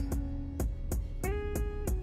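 Background music: a guitar-led track with a steady beat and no singing.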